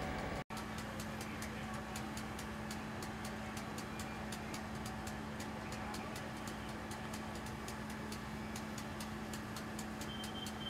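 Fire engine running steadily at the scene, a low steady hum from its engine and pump, with fast light ticking over it. The sound jumps briefly about half a second in, where the picture cuts.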